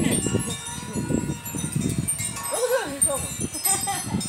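Short snatches of voice over thin, steady high ringing tones and a rustling background.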